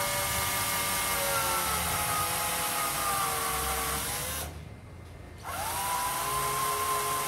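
Cordless drill with a thin bit boring a pilot hole for a screw into a wooden cabinet panel. The motor whines for about four seconds, its pitch sagging slightly under load, stops for about a second, then runs again for about two seconds.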